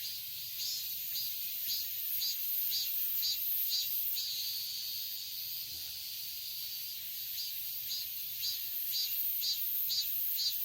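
Cicadas singing: a repeated pulsing call at about two pulses a second, in two bouts each ending in a longer drawn-out note, over a steady high insect hiss.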